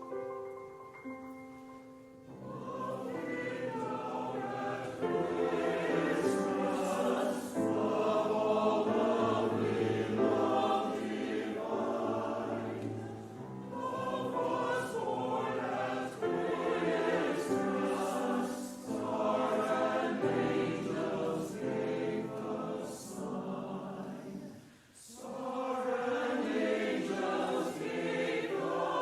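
Church chancel choir singing a Christmas piece in parts, entering about two seconds in after a few held accompaniment notes.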